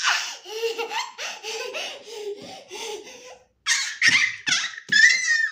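Young child laughing and giggling in short bursts, breaking into a high-pitched squeal near the end.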